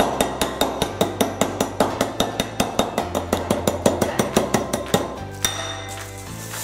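A stainless steel measuring cup pounding graham crackers inside a plastic bag on a countertop, rapid steady strikes several a second, crushing the crackers into fine crumbs. The pounding stops about five seconds in.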